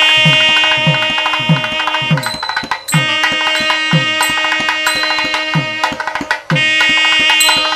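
Traditional Indian devotional music: long held melodic notes over a steady drone, with a hand drum keeping a regular beat of deep strokes that drop in pitch.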